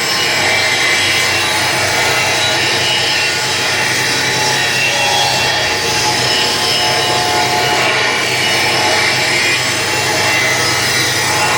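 Homemade motor-driven saw machine running and cutting wood, a steady, continuous sawing noise.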